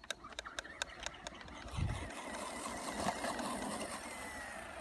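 ECX Amp brushed electric RC car driving: a quick run of sharp clicks and rattles, then about two seconds of motor whine and running noise that fade out as the whine falls in pitch near the end.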